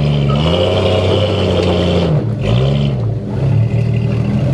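Off-road 4x4's engine revving up and holding, easing off about two seconds in, then revving up once more briefly and settling back, as the vehicle works to climb over rocks.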